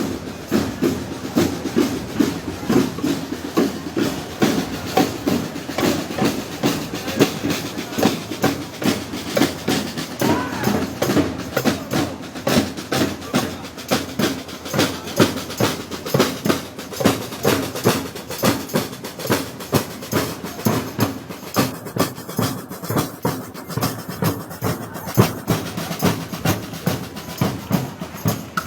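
Festival band music with percussion keeping a steady beat, about two strokes a second, throughout.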